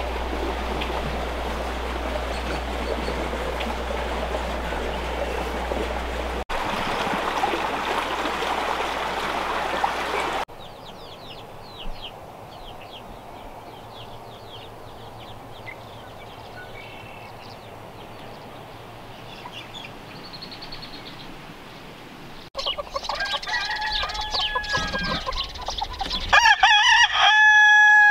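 A steady rushing noise gives way to a quieter stretch of faint bird chirps. Then chickens start calling, and a rooster crows loudly near the end.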